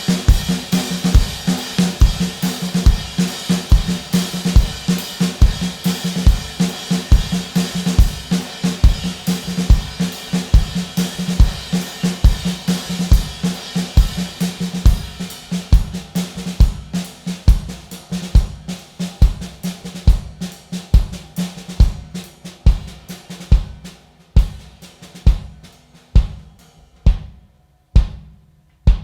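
A live rock band's drum kit playing with the full band, with kick drum, snare, hi-hat and cymbals. About halfway through, the other instruments fall away and leave separate drum hits that come further and further apart as the song winds down to its end.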